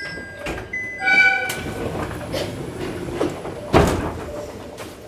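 Train running, heard from inside the cab: a short, pitched, horn-like tone about a second in, over a running rumble, and a heavy knock just before the four-second mark.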